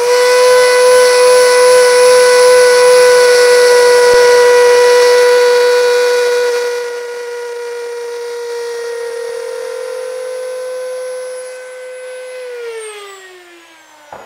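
Virutex trim router running at full speed with a steady high whine, routing a hinge recess into a door edge. It is loudest and roughest for about the first seven seconds, then runs on more quietly. Near the end it is switched off, and the whine falls in pitch as it winds down.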